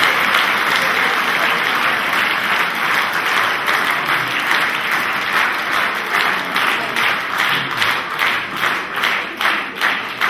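Audience applauding, a dense mass of clapping that about halfway through falls into a steady beat of roughly two to three claps a second.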